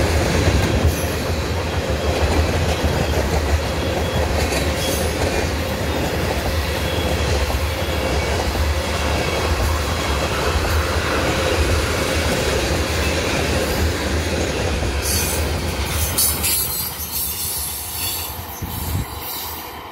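Empty tank cars of a freight train rolling past: a steady low rumble of steel wheels on the rails. A burst of high-pitched noise comes in about fifteen seconds in, and the rumble falls away over the last couple of seconds.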